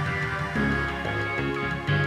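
Background music laid over the video, with pitched notes changing every fraction of a second.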